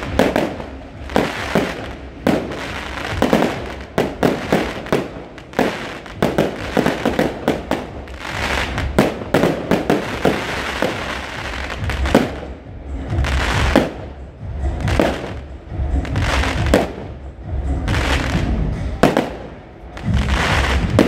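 Fireworks display: aerial shells bursting in a quick, irregular run of sharp bangs, with crackle and a low rumble between them.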